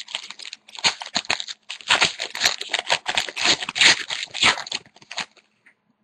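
A trading-card pack wrapper crinkling as it is torn open and the cards are handled: a run of loud, irregular crackles that dies away about five seconds in.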